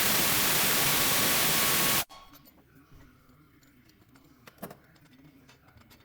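A loud, steady hiss that cuts off abruptly about two seconds in, followed by near quiet with a single faint click.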